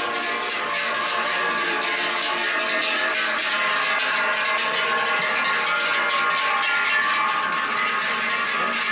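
Many large cowbells clanging together as a herd of cows walks past, a dense jangle of overlapping ringing tones.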